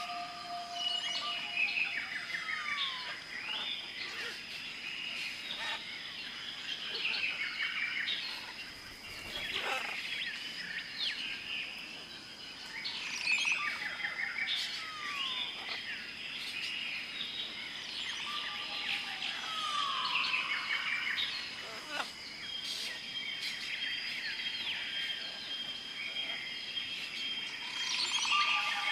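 Jungle ambience: a dense chorus of many birds chirping, whistling and calling at once, with short falling whistles recurring, over a steady high-pitched insect drone.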